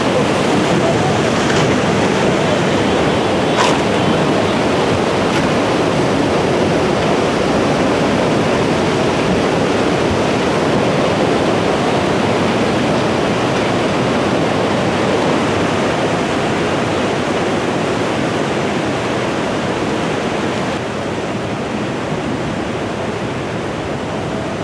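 Tsunami floodwater pouring over a seawall: a loud, steady rushing of water that eases slightly near the end.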